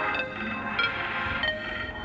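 Samsung Galaxy A12 ringtone playing: an electronic melody of short pitched notes over a low beat.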